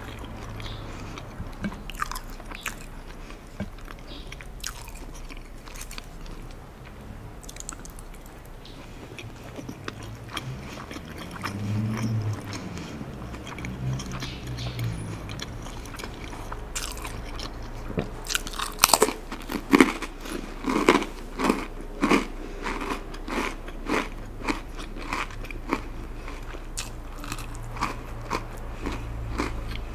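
Close-miked eating sounds: soft wet chewing at first, then, a little over halfway through, a cracker bitten and chewed in a run of sharp, crisp crunches that go on to the end.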